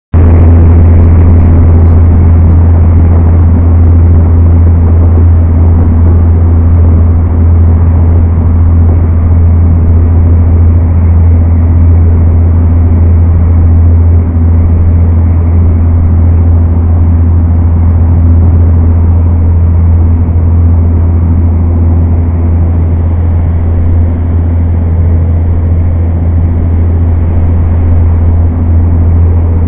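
Passenger ferry's engine droning steadily and loudly on the deck, with the rush of the churning wake water over it.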